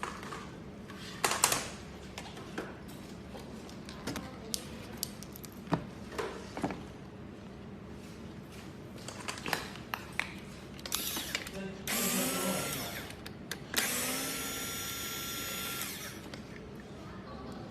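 Scattered clicks and knocks of tools and parts being handled, then a power drill running: a short whir about twelve seconds in, and a steadier whir with a high whine for about two seconds shortly after.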